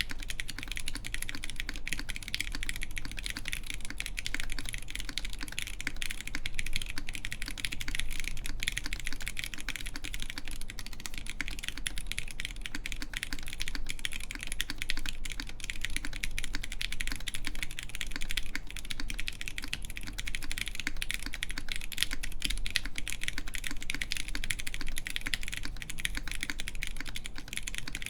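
Continuous typing on a mechanical keyboard with lubed Zealios v2 tactile switches in an aluminium full plate and Cherry-profile keycaps: a dense, steady stream of key clacks with no pauses.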